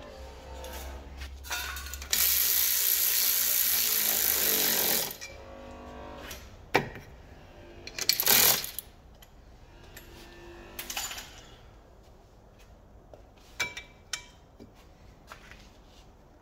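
Air ratchet running steadily for about three seconds as it drives in the small screw that holds a new brake disc to the hub, then a second short burst a few seconds later, followed by light metal clinks and knocks as the disc is handled.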